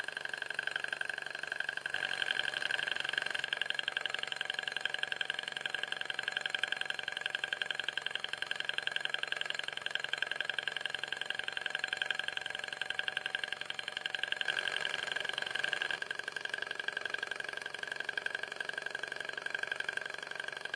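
Böhm HB7 In Line Runner miniature Stirling (hot-air) engine, fired by a small alcohol burner, running steadily with a fast, even mechanical clatter from its pistons and crank.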